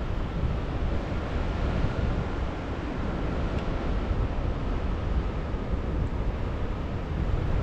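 Steady rushing wind buffeting the microphone from airflow during a paraglider flight, heaviest in the low rumble.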